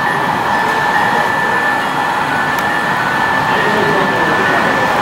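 Model passenger train running by on the layout track: a steady whirring of motors and wheels with a constant high whine.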